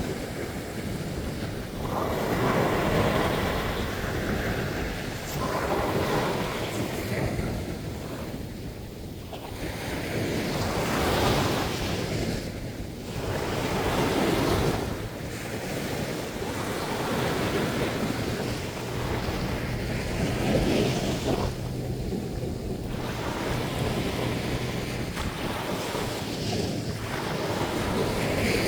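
Ocean surf breaking on the beach, swelling and falling back every few seconds, with wind buffeting the microphone.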